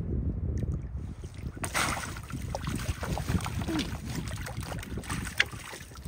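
Wind buffeting the microphone. About two seconds in, a sudden hiss of water noise from a rowboat takes over, with scattered light knocks, fading toward the end.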